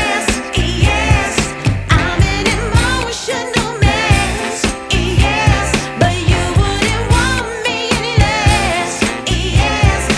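A song playing: a singer's wavering voice over a steady, repeated bass beat.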